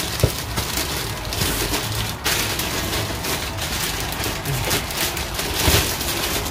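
Plastic bags crinkling and rustling as hands pull wrapped parts out of a foam-packed cardboard box, a busy irregular crackle throughout.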